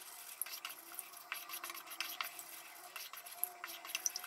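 Wooden spoon stirring a thin cornstarch, baking-soda and water mixture in a stainless steel saucepan, scraping the pan bottom in quick, irregular strokes. The constant stirring keeps the mixture from burning onto the bottom as it heats.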